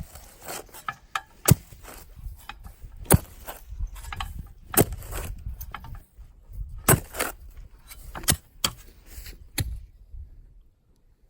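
Post hole being dug by hand in hard ground: a hand digging tool strikes into the soil about every second and a half, each stroke a sharp metallic chunk with scraping dirt between strikes.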